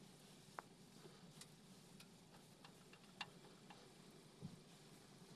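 Near silence with a few faint, scattered clicks at irregular intervals.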